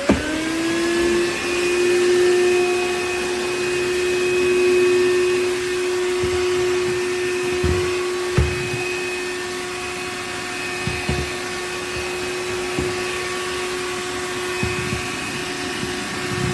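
Powools cordless handheld vacuum switched on: its motor spins up within the first moment and then runs with a steady whine, with a few light knocks at intervals.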